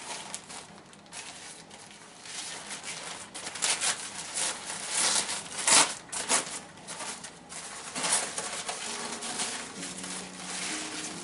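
Plant packaging being crumpled and pulled open by hand: irregular crinkling and rustling, with a few louder crackles about five to six seconds in.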